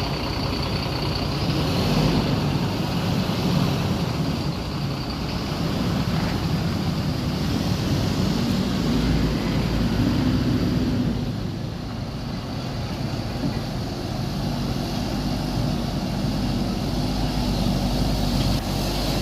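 Large diesel bus engine running close by, heavy and low, easing a little partway through and then picking up again.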